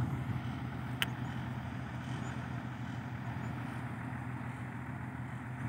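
A heavy diesel engine idling steadily, a constant low hum. A short knock comes right at the start and a sharp click about a second in.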